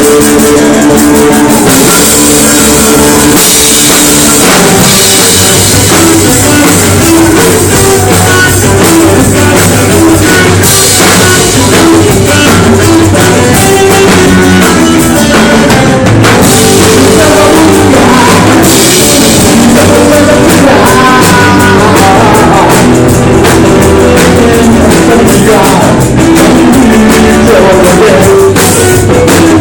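Loud rock music with a drum-kit beat and singing, part of a rock medley.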